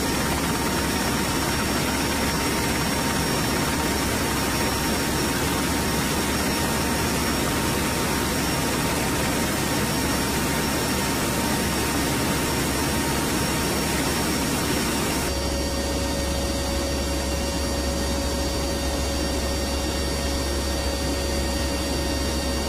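Steady, loud in-flight noise of the HC-130N's four turboprop engines, with a strong low rumble and a couple of faint steady whines. About 15 s in, the mix of tones changes abruptly to a slightly different drone.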